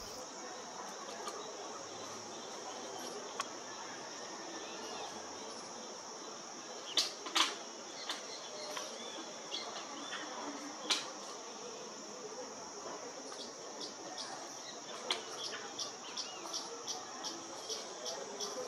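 A steady, high-pitched insect chorus. A few sharp clicks stand out about seven seconds in and again near eleven seconds, and in the last few seconds a run of quick ticks comes about two or three a second.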